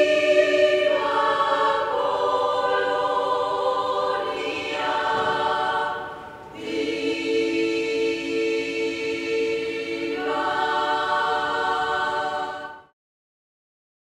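Choir singing held chords, dipping briefly about six seconds in, then swelling again and breaking off sharply about a second before the end.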